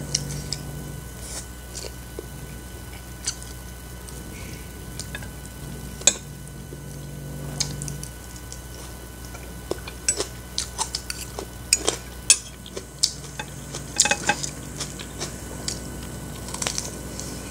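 Close-miked eating sounds: a metal fork clinking and scraping on a ceramic plate of fried instant noodles, with wet chewing, as scattered irregular clicks. The clicks come thicker near the end, when a piece of crispy fried chicken is bitten. A steady low hum sits underneath.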